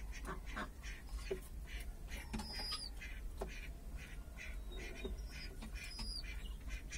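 Birds calling: a steady run of short chirps and squawks, some of them quick high notes that fall in pitch.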